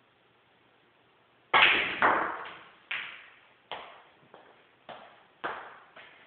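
A snooker shot: a loud cue-on-ball strike, followed half a second later by a sharp clack as the cue ball hits the black. Then come about six lighter knocks, each fading quickly, as the balls come off cushions and the black drops into the pocket.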